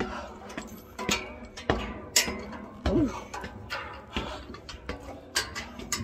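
Footsteps climbing trail stairs: irregular sharp taps and knocks of feet on the steps, with a short vocal grunt about three seconds in.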